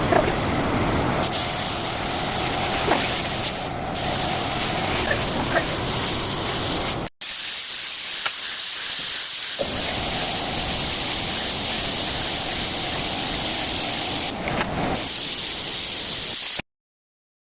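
Airless paint sprayer spraying paint onto walls: a steady hiss that stops abruptly near the end.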